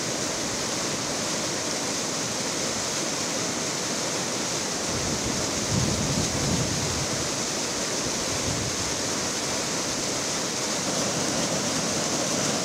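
Muddy floodwater rushing and churning steadily, briefly deeper and louder about halfway through.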